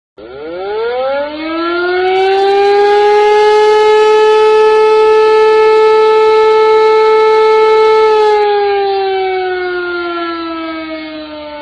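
Civil-defence air-raid siren winding up to a steady wail over about two seconds, holding it, then slowly winding down in pitch over the last few seconds.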